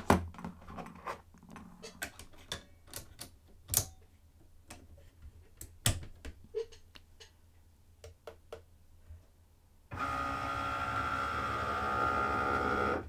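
Scattered clicks and knocks as a Cricut Maker's tool clamp is opened and a fine-point blade is clicked in. About ten seconds in, the machine's carriage motor starts a steady whir with a high tone as it detects the new tool.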